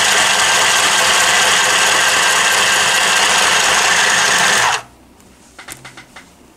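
Mini electric sewing machine running steadily as it stitches through the layers of a padded quilt, then stopping abruptly about five seconds in. A few light clicks follow.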